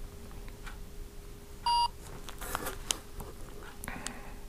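Smartphone snack-scanner app giving one short electronic beep as it reads the barcode on a biscuit packet. Faint clicks and rustles of the packet being handled come before and after it.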